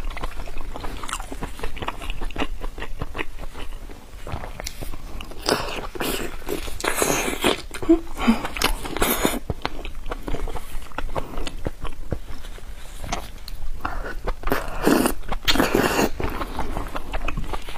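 Close-miked chewing and biting of stewed lamb intestine rolls: dense, wet mouth sounds, with two louder stretches of chewing, one near the middle and one toward the end.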